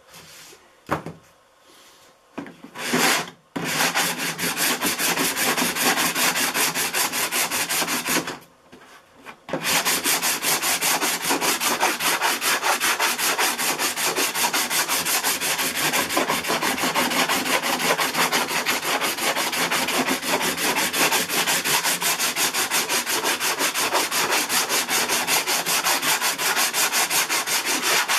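Hand block sanding of cured EverCoat body filler on a model airplane's fuselage, sandpaper rubbed back and forth in fast, even strokes to bring a built-up ridge back down. A few knocks come near the start, and there is a short pause about eight seconds in.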